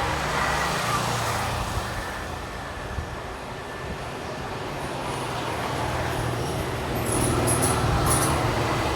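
Road traffic going by: a steady rumble of engines and tyre noise that grows louder toward the end, with a few brief high-pitched squeaks near the end.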